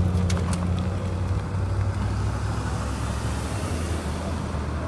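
Cars driving past on the road: a steady low engine hum with tyre hiss that swells as a vehicle passes about three to four seconds in.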